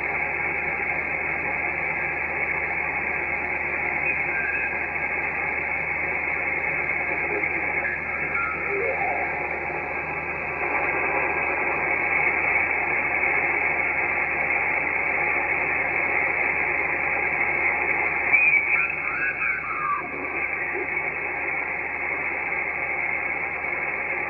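Icom IC-7300 receiving 10-metre upper sideband while being tuned across the band: steady band-limited receiver hiss, with faint snatches of mistuned sideband voices sliding in pitch as the dial passes stations, the strongest about three-quarters of the way through.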